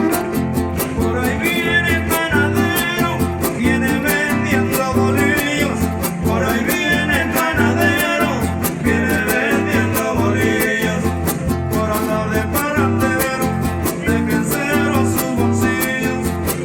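A huapango played by a huasteco trio: a violin plays the melody over strummed jarana and huapanguera guitars keeping a steady, lively rhythm.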